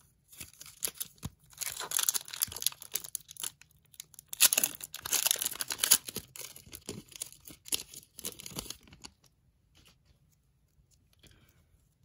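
Upper Deck hockey card packaging being torn open: plastic wrapping tearing and crinkling in a rapid run of rustles, loudest about halfway through, then stopping about three-quarters of the way in.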